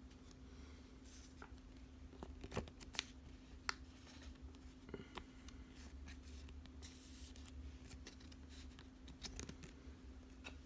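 Faint clicks and short rustles of trading cards and foil booster-pack wrappers being handled, over a low steady hum.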